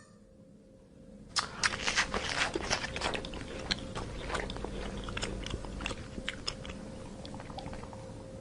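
A giraffe chewing and crunching food, with irregular crisp crunches starting about a second and a half in.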